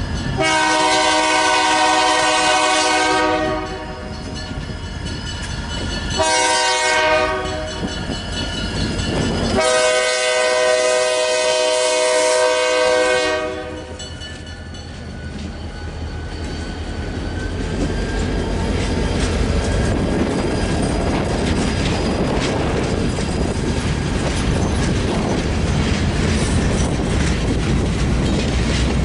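EMD GP30 locomotive's K5LA air horn sounding a long, a short and a long blast. Then the locomotive and a string of covered hopper cars roll past with a deep rumble and wheels clicking over the rail joints, getting louder toward the end.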